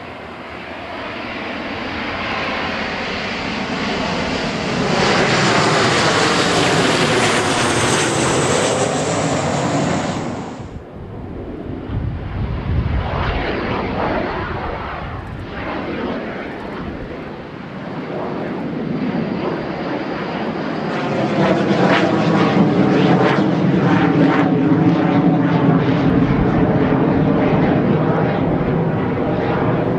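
Jet noise from Kawasaki T-4 jet trainers' twin turbofan engines as the aircraft fly past. A loud pass builds and peaks from about five to ten seconds in and drops away sharply near eleven seconds. A second loud pass builds from about twenty-one seconds in and holds to the end.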